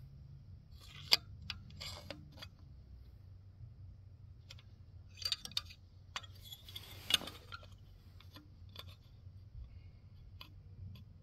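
Scattered light clicks, clinks and short rattles of small metal parts being handled, with a sharp click about a second in and another about seven seconds in, over a faint steady low hum.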